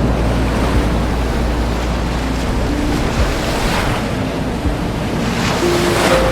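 Ocean surf: a steady wash of sea noise with waves surging in about halfway through and again near the end. Soft, sparse music notes sound faintly underneath.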